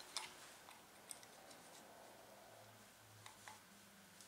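Near silence broken by a few faint clicks of plastic knock sensor connectors and wiring being handled and fitted on a bare LS engine block.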